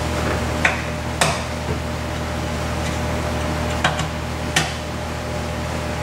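About five sharp metallic clicks of a hand tool on the velomobile's bottom bracket clamp bolts as they are tightened a quarter turn at a time, three close together near the start and two more about four seconds in, over a steady low hum.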